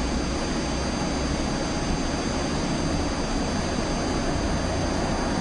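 Steady, even rushing noise from the Moshi talking alarm clock's speaker, one of its built-in sleep sounds, with two faint high steady tones in it.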